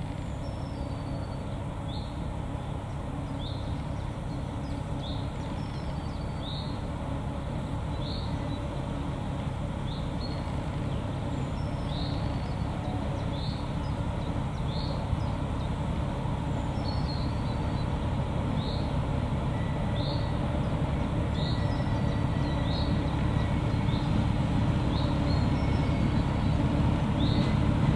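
Narrow-gauge field-railway diesel locomotive running steadily as it pulls a train of peat wagons, growing louder as it approaches. Short high chirps repeat about every second and a half above the engine.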